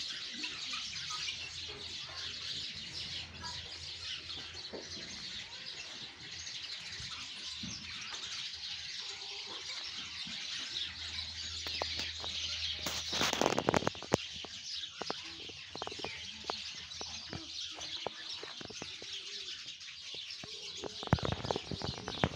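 Dense, continuous chirping of many small birds around the aviaries. A short rustling burst about 13 seconds in, and a few sharp clicks near the end.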